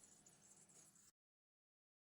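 Near silence: a faint background hiss that cuts off suddenly to total silence about a second in.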